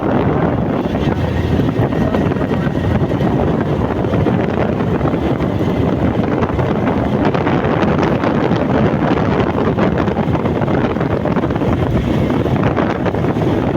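Steady wind buffeting the microphone over the road and engine noise of a vehicle driving along a motorway.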